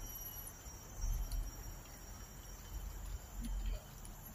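Forest insects keeping up a thin, steady high-pitched drone. Low rumbling on the microphone comes and goes twice.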